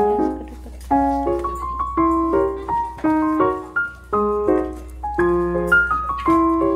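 Background piano music: a light tune of chords and single notes, a new note or chord struck about twice a second.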